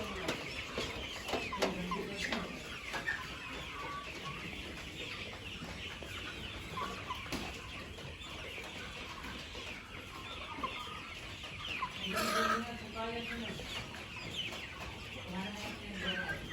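A flock of Kuroiler chickens chirping and clucking continuously, with a louder drawn-out call about twelve seconds in.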